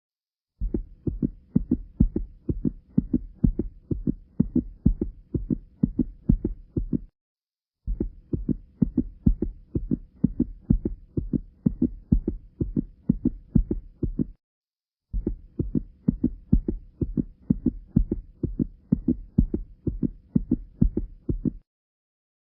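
Heart sounds of tricuspid stenosis: a rapid, regular heartbeat with a low murmur between the beats. It comes in three runs of about six seconds, each broken off by about a second of silence.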